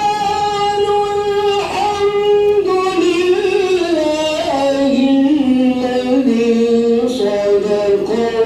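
A male qari chanting Qur'anic recitation into a microphone in long, drawn-out melodic phrases with ornamented held notes. His pitch steps slowly downward through the phrase, then climbs again near the end.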